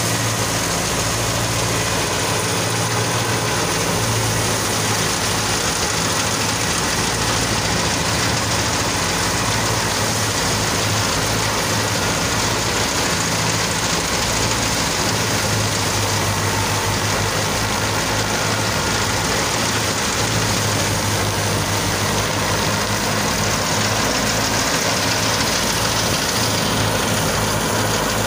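Fiat 480 tractor's three-cylinder diesel engine running steadily under load, driving a wheat thresher. The thresher's even rushing noise sits over the engine's low hum.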